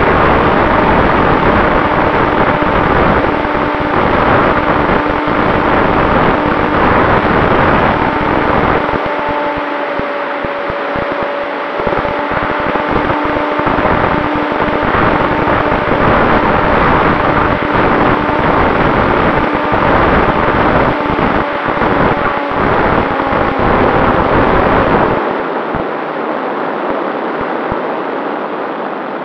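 Electric motor and propeller of an RC SuperCub plane (Turnigy 3536 1000 kV brushless motor) running steadily under heavy wind rush, heard from its onboard camera, with a faint steady whine in the noise. It becomes quieter about 25 seconds in.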